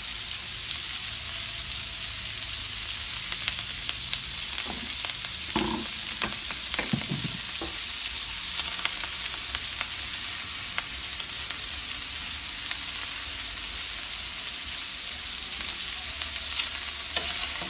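Sliced onions and bell peppers frying in a skillet in bacon fat: a steady sizzling hiss with scattered small crackles.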